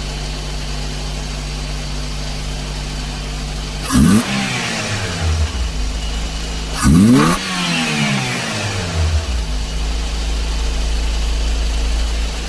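Daihatsu Dabbab pickup engine idling, revved sharply twice about three seconds apart, each rev dropping back to idle over a second or two. The mechanic blames the unsteady, over-high idle on the electronic throttle body's plate.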